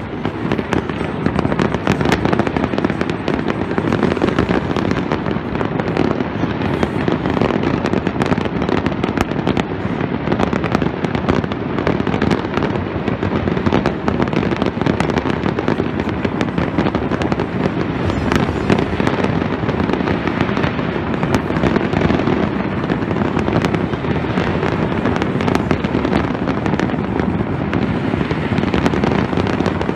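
Fireworks display: a dense, continuous barrage of bangs and crackling with no break, over a steady low rumble.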